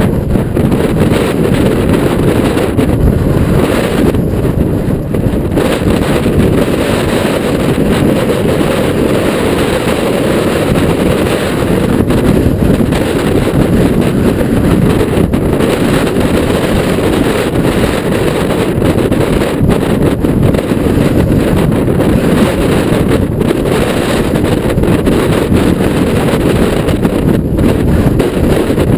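Strong wind buffeting the microphone of a ride camera on a mountain bike: a loud, steady, low rush with no letup.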